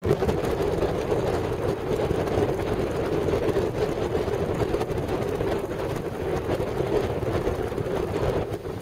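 Strong wind buffeting the camera microphone: a steady rushing rumble that flutters unevenly, over the wash of breaking surf.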